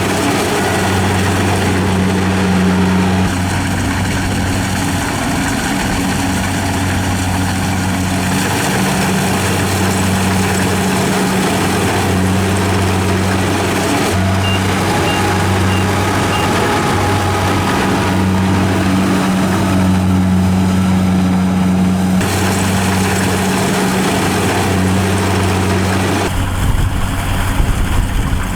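Diesel engine of a rice harvesting machine running steadily. Its low hum swells and eases every second or two. Near the end the sound turns to a rougher low rumble with a few knocks.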